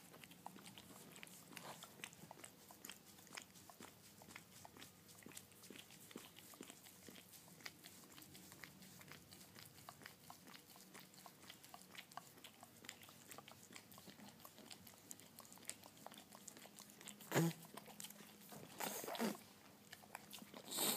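Pit bull licking a person's face and mouth: a steady run of small wet clicks and laps, with a few louder short sounds near the end.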